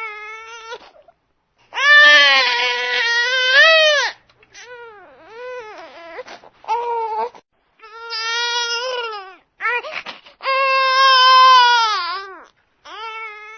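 Baby crying in a series of wails and softer whimpers, each cry a second or two long with short breaks for breath between. The longest, loudest wails come about two seconds in and again near the end.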